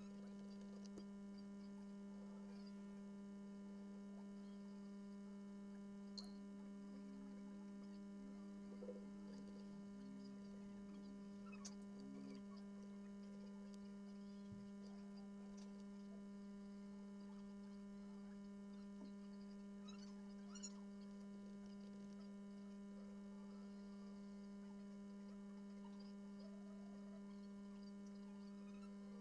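Steady, faint electrical hum, with a few faint clicks now and then.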